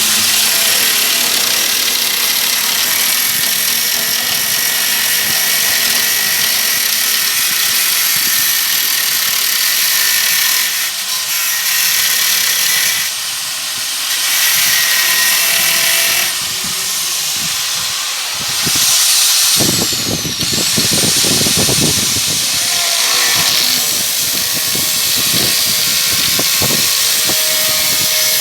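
Angle grinder with a knotted wire wheel running against the steel of a rusty van sliding door, stripping rust and old body filler with a loud, steady grinding hiss. Its high whine dips in pitch about two-thirds of the way through, as the wheel is pressed hard, then picks back up.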